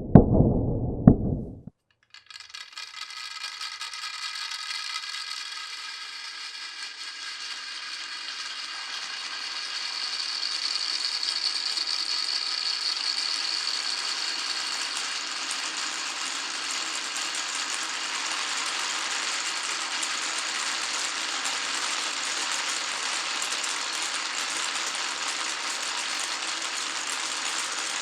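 Many marbles rolling and clattering continuously through a wooden and plastic marble-run track, a dense steady rattle with faint ringing tones. It starts about two seconds in, after a brief louder knocking sound that cuts off abruptly.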